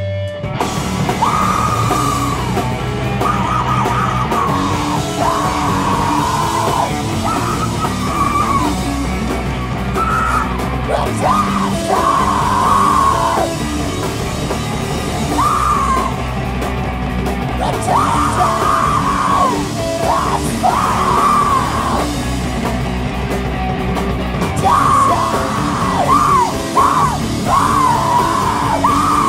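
Live heavy rock band playing loud, guitars and drums driving hard with yelled vocals over them; the full band crashes in about half a second in, after a single held note.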